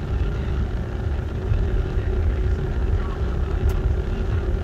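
Steady low rumble of a running engine, unchanging throughout.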